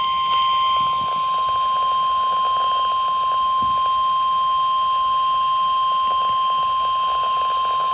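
NOAA Weather Radio warning alarm tone: a single steady, unbroken 1050 Hz beep over faint radio static. It is the alert that a warning message is about to be broadcast.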